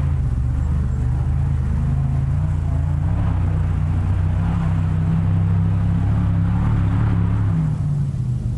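Off-road race car engine running steadily at speed, its pitch rising slightly midway and then dropping off shortly before the end.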